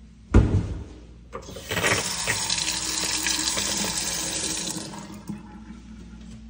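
A cabinet door shuts with a thump, then a kitchen faucet runs a stream of water into a stainless steel sink for about three seconds before it is turned off and the sound fades.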